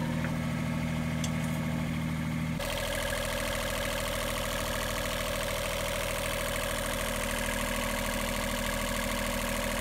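A boat's diesel engine running steadily at idle, a constant drone whose note changes abruptly about two and a half seconds in.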